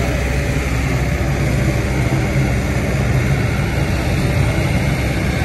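Hydraulic excavator's diesel engine running steadily and loud while it swings a bucket of sand.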